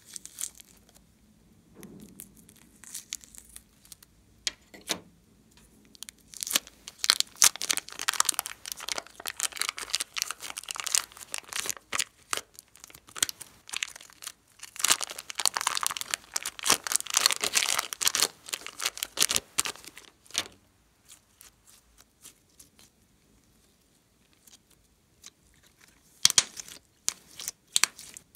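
Plastic piping bag crinkling and tearing as hands peel it open and pull it away from a lump of red clay slime, after a few faint scissor snips at the start. The crinkling is densest through the middle, then stops and comes back briefly near the end.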